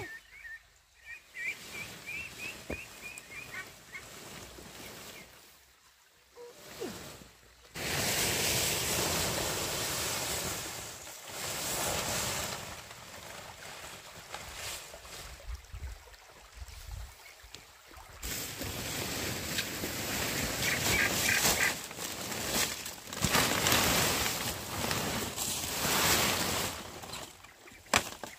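Ducks calling in a quick run of short notes at the start and again briefly later, while a bundle of fresh fan-palm fronds is dragged over rocks and dirt, making a loud rustling and scraping that swells and fades from about a third of the way in.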